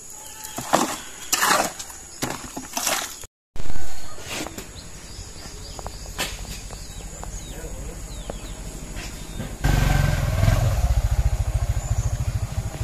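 A steel shovel scraping and dragging through wet concrete mix, several strokes in quick succession. It stops abruptly and is followed by a steady low pulsing rumble that gets markedly louder near the end.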